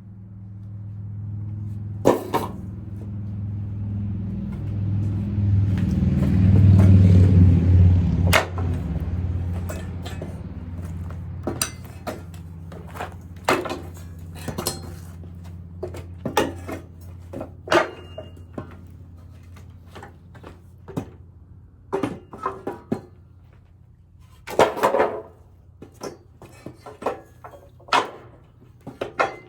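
Pallet boards being pried off with a homemade steel pallet-buster lever: the wood and nails strain in a swelling creak that ends in a sharp crack, followed by a long run of separate knocks and clatters of boards and tool. A steady low hum runs underneath.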